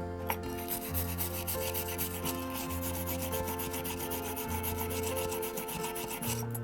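Rapid back-and-forth rubbing or filing strokes, several a second, stopping near the end, over soft background music.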